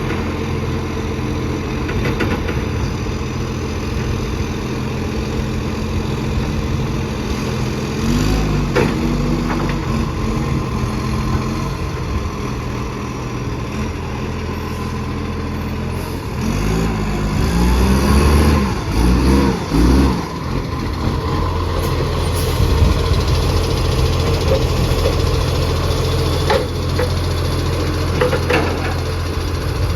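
Recycling garbage truck's diesel engine idling steadily, which the title says has an exhaust leak. Its revs briefly rise and fall about eight seconds in, then swing up and down several times, louder, a little past halfway.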